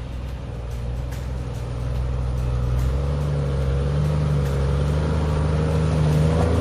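A 4x4's engine running, picking up revs about three seconds in and growing louder.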